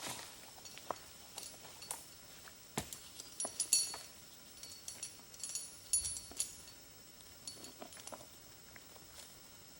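Light metallic jingling and clinking, with scattered sharp knocks; the loudest jingles come about three and a half seconds in and again about six seconds in.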